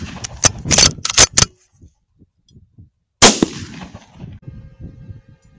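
.308 Winchester rifle fired once about three seconds in: a loud crack followed by a long echoing tail. Before it comes a quick run of five or six sharp clacks in the first second and a half.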